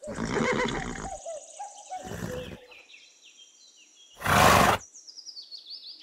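A pony snorting three times, about two seconds apart, the last the loudest, with small birds chirping and twittering behind.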